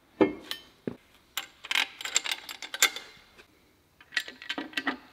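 Metal engine parts clinking and knocking against an aluminium engine block as they are handled and set in place: a string of sharp clicks and taps at uneven intervals, with a short pause about three seconds in.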